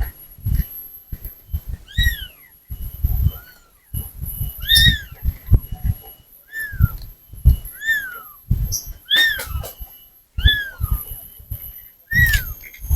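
Small kitten mewing over and over, about eight short high-pitched mews, each rising then falling in pitch. Low rumbling noise sits under the mews.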